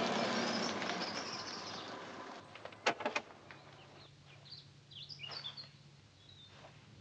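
A truck's engine running and fading away over the first two or three seconds, then two sharp clicks about three seconds in, followed by faint bird chirps.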